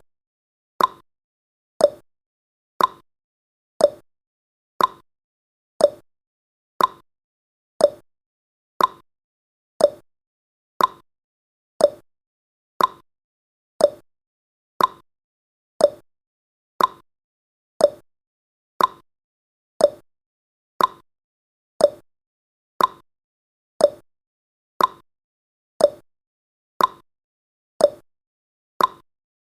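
Clock tick-tock sound effect of a countdown timer, one short click each second, alternating between a higher tick and a lower tock.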